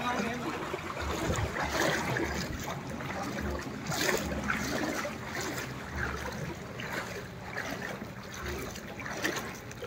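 Shallow floodwater sloshing and splashing in irregular strokes, as of someone wading through it.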